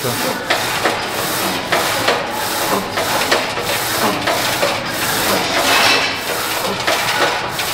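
Busy gym sound with a steady, even beat of nearly two knocks a second over a constant noisy wash.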